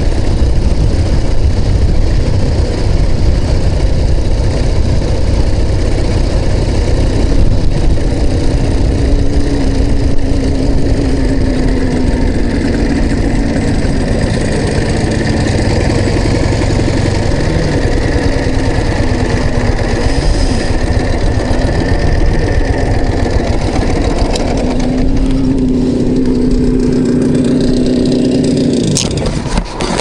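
Ural Tourist sidecar motorcycle's flat-twin engine running on the move, its pitch rising and falling with the throttle. Near the end it settles into a steady note and drops away as the bike slows to a stop.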